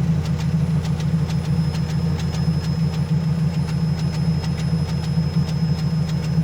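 Toyota Hilux's 3RZ four-cylinder petrol engine idling with a misfire, a steady low running sound broken by uneven ticks. The misfire shows only once the engine is warm after a drive, and it is pretty evident.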